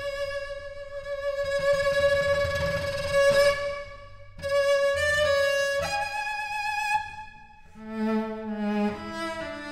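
Cello playing long, held high notes, with a short break about four seconds in. It then moves down to lower notes in the last couple of seconds.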